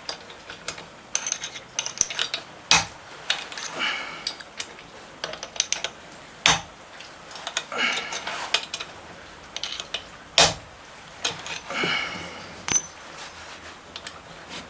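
Metal hand tools clinking as the cylinder head nuts of a Suzuki Address 110 scooter engine are loosened. Sharp single clinks come a few seconds apart, with short runs of rapid ratchet-like clicking between them.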